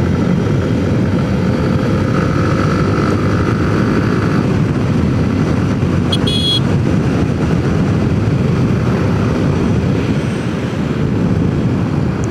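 Faired sport motorcycle cruising steadily, its engine and riding noise a steady low rumble heard from the rider's seat. A brief high beep sounds about six seconds in.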